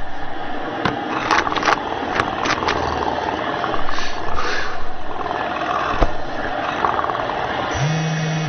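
Cat purring steadily, a rough rumbling purr, with a few sharp clicks.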